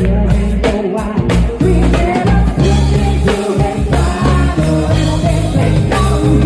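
A band playing with a singer's voice over a steady bass and drums.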